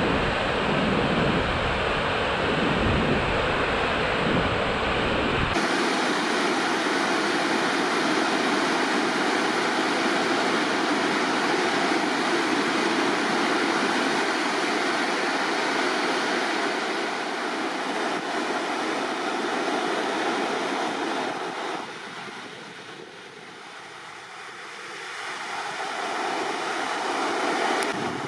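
Agate Falls' waterfall rushing, a steady hiss of falling water. Wind buffets the microphone with a low rumble for the first few seconds, then the sound changes abruptly to a steadier water noise that eases off for a few seconds near the end.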